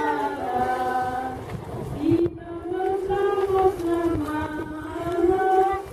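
Congregation of worshippers singing a slow hymn in unison, mostly women's and children's voices on long held notes, with a short break between phrases about two seconds in.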